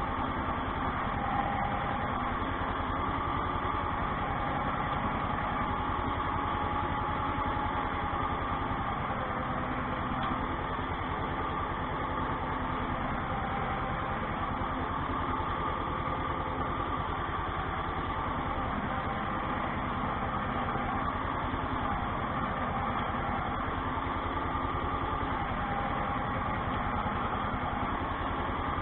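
Ursus C-360 tractor's four-cylinder diesel engine running steadily while pulling a potato hiller through the rows, heard from inside the cab. The engine is being run in, so it is kept on light work.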